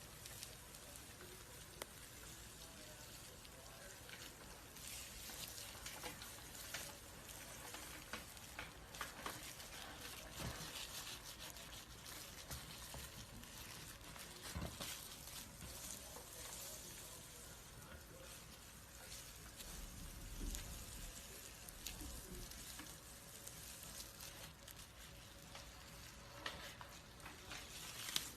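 Snake shedding its skin: faint, dry crackling and rustling with many scattered small clicks.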